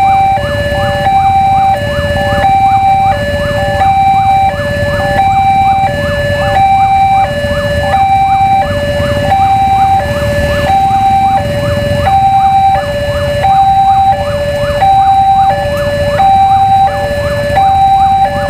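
Railway level-crossing warning alarm sounding its electronic two-tone signal, a higher and a lower tone alternating steadily, each held for under a second. A low rumble of waiting traffic lies underneath.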